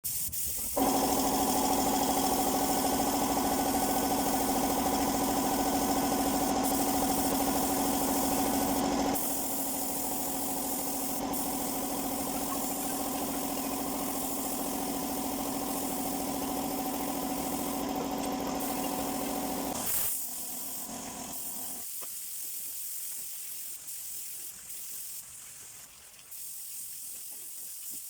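Spray-painting equipment: a motor, taken to be the air compressor, runs with a steady hum under a hiss of air and paint spray. The hum stops about twenty seconds in, leaving the hiss on its own.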